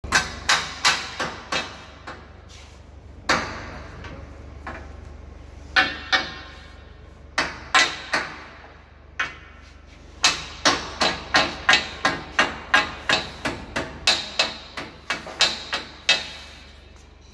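Hammer blows on the steel frame of a Rieter G38 ring spinning machine as it is levelled during installation: runs of quick strikes, about two or three a second, each ringing briefly, separated by short pauses, over a steady low hum.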